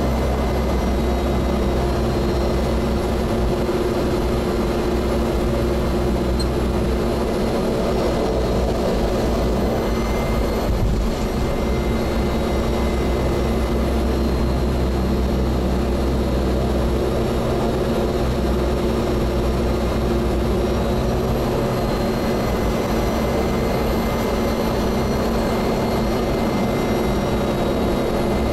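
Cessna Grand Caravan's Pratt & Whitney PT6A turboprop running steadily at low taxi power, heard inside the cabin. A steady high turbine whine sits over the low drone of the engine and propeller.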